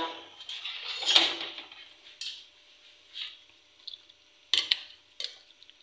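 A few scattered clinks and taps of kitchen utensils against a dish, the sharpest clicks near the end.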